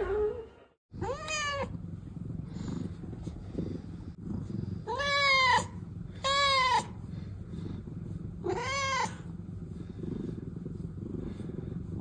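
A domestic tabby cat meows four times, short meows that rise and fall in pitch, spaced a few seconds apart. Under them runs a steady low purr.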